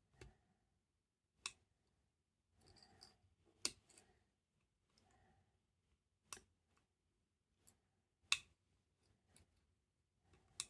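Faint metal clicks of a pick and tensioner working the levers of an oily ERA Insurance 5-lever lock: about six sharp clicks a second or two apart, with faint scraping between them.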